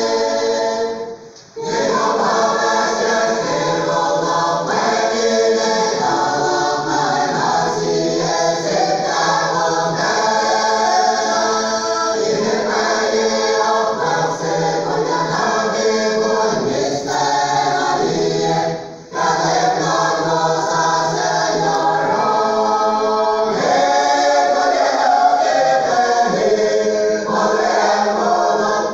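A large mixed church choir of women and men singing a hymn in harmony, with two short breaks between phrases, about a second and a half in and again about nineteen seconds in.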